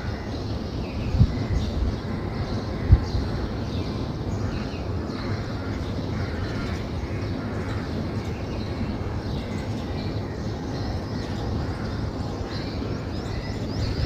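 Outdoor ambience of small birds chirping faintly over a steady low rumble, with two short thumps in the first three seconds.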